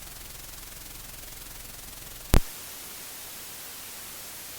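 Steady hiss and fast, fine ticking noise from a PreSonus Revelator IO 24 headphone output with nothing playing back. A little over two seconds in, a single sharp pop as the sampling rate is switched, after which the low ticking drops out and a brighter, thinner hiss remains.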